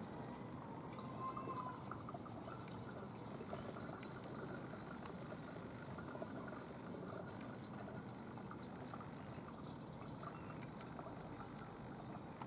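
Faint, steady background noise, an even low hiss with no distinct events, and a brief faint tone about a second in.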